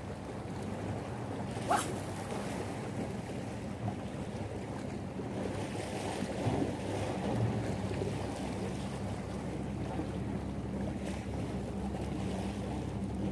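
Small waves washing against breakwater rocks and wind on the microphone, over a steady low hum. One short, sharp rising sound comes about two seconds in.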